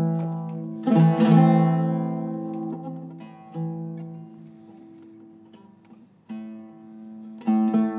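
Iraqi-style Zeryab oud with a cedar top and mahogany back, its Kröschner strings plucked with a plectrum in a sound test. A few strokes and chords are struck about a second in, again past six seconds and near the end, and each is left to ring out and fade slowly.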